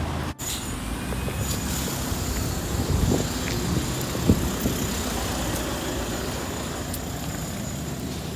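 Road traffic passing on a street: a steady rumble of vehicles.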